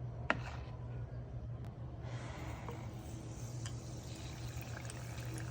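A battered Snickers bar frying in hot oil: a single click about a third of a second in, then, from about two seconds in, a steady sizzle with small crackling pops over a low hum.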